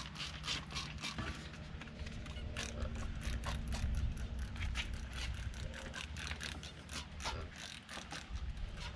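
Trigger spray bottle squirting soapy water into a mountain-bike tire, the trigger pumped rapidly at about four short hissing sprays a second.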